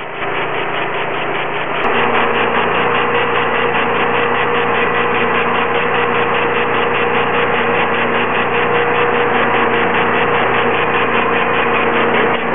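Hydro Tek pressure washer trailer running steadily while a rotary surface cleaner sprays wet concrete. The sound steps up in loudness about two seconds in and carries a steady machine whine.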